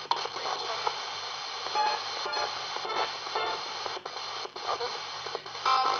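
RadioShack 20-125 portable radio sweeping the FM band as a spirit box: steady static hiss broken by brief, chopped fragments of broadcast sound and short dropouts as it jumps from station to station.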